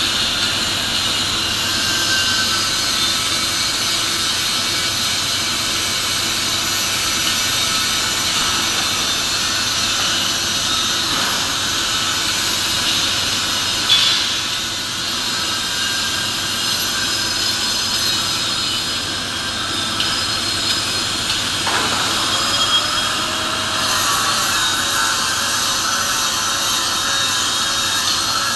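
Steady industrial machinery noise in a pipe-fabrication shop: a loud, even hiss that runs without a break. A faint tone rises about three-quarters of the way through and then holds.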